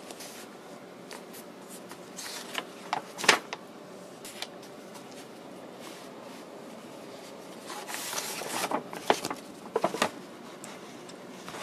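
Paper instruction-manual pages rustling and crackling as they are turned and unfolded: a few sharp crackles a couple of seconds in, then a longer spell of rustling from about eight to ten seconds in.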